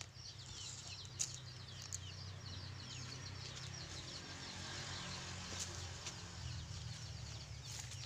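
Many small birds chirping continuously in short, high, quick notes, over a low steady hum.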